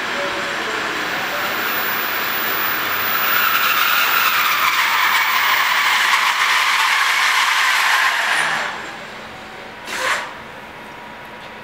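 NS 'Plan' (Mat '64) electric stopping train braking into the platform. Its brakes squeal with a rising screech for several seconds, which cuts off abruptly as the train halts about eight and a half seconds in. A short hiss of air follows about a second and a half later.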